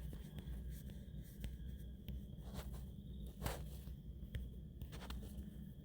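Faint scattered clicks and light scraping over a low steady hum, with a few louder ticks about two and a half and three and a half seconds in.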